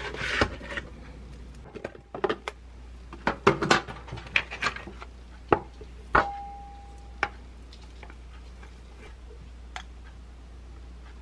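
Spoon and dishes being handled: a run of clicks, scrapes and knocks as a spoon scoops Greek yogurt from a plastic container into a bowl. About six seconds in, a sharp clink of the spoon against the bowl rings briefly. After that there are only a few faint ticks.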